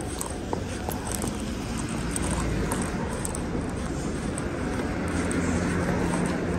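Urban street ambience: a steady low traffic rumble with general city noise, growing slightly louder, and a low hum coming in during the second half.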